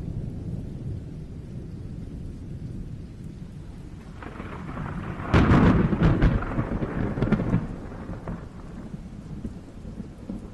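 Thunderstorm: a low, steady rumble of thunder over rain, broken about five seconds in by a sharp, loud thunderclap that crackles and rolls for two or three seconds before fading back to the rumble.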